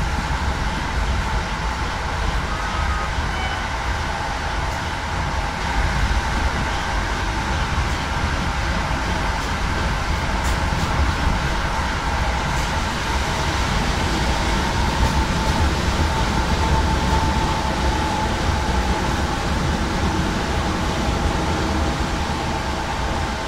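Regional passenger train running at speed, heard from inside the carriage: a steady rumble of wheels on the track with a steady whine over it.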